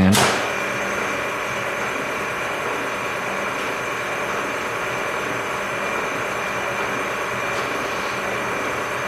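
Milling machine motor running steadily, a constant whine over a low hum, most likely the mill head being power-raised to make room for the reamer under the chuck.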